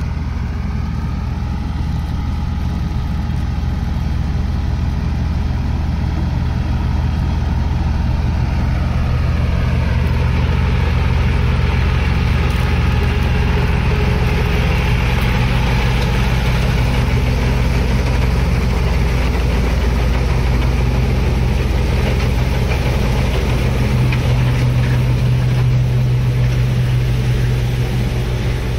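Massey Ferguson 9500 tractor engine running steadily under load as it drives a tractor-drawn straw reaper through wheat stubble. It grows louder as the machine comes close and passes, then eases slightly.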